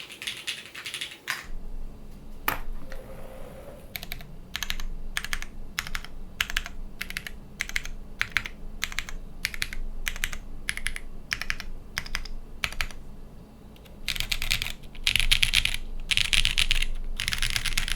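Typing on a custom mechanical keyboard with tactile Cherry MX Hyperglide Brown switches fitted with Kailh Brown stems, in an o-ring mounted aluminium half plate under GMK keycaps, with no sound dampening. Single keystrokes at an even pace of a few a second through the middle, and fast bursts of typing near the end.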